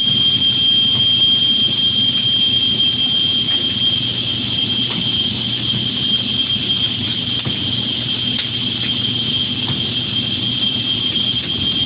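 Automatic seam-welding machine for steel light poles running: a steady high-pitched whine over a low hum, with faint scattered crackles.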